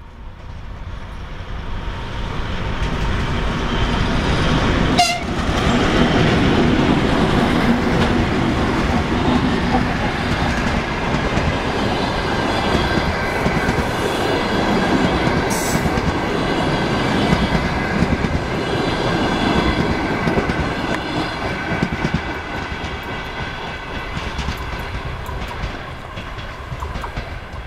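Soviet 2TE116 twin-section diesel-electric locomotive hauling a passenger train past, its diesel engines running alongside the rumble and clatter of the wheels on the rails. The sound grows loud within the first few seconds, stays loud while the coaches pass, and fades near the end.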